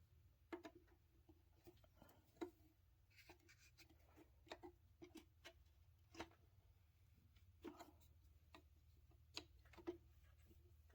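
Faint, irregular clicks and light taps of hand tools and metal parts while the throttle body bolts are loosened and the throttle body is pulled off the engine.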